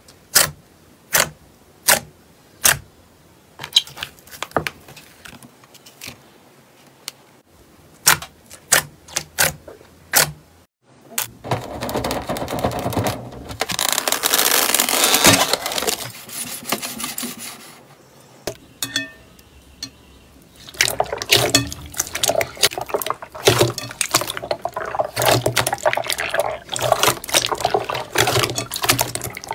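Slime being handled close to the microphone: sharp pops about twice a second at first, then, after a break, wet squishing and squelching, and near the end a dense run of crackling pops.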